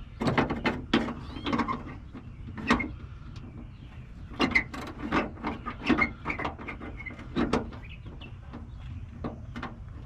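Ratchet and socket clicking and knocking against metal in irregular bursts as a nut is worked onto a stud, busiest at the start and again from about four seconds in.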